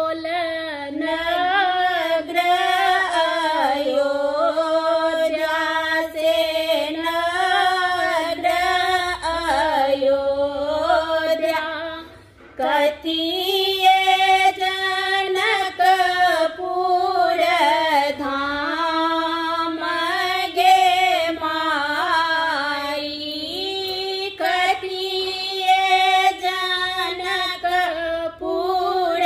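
Two women singing a Maithili folk wedding song together, unaccompanied, in one flowing melodic line. There is a brief pause for breath about twelve seconds in.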